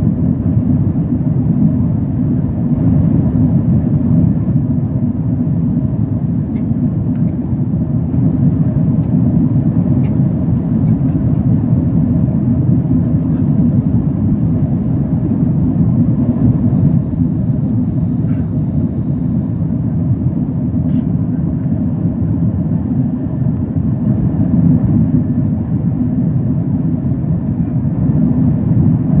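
Steady low roar of an Airbus A330-200's engines and airflow, heard inside the cabin over the wing while the airliner climbs through cloud.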